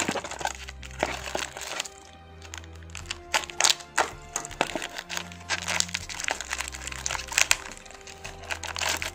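Black foil blind bag crinkling and crackling as it is handled and slit open with a box cutter, in sharp, irregular crackles over background music.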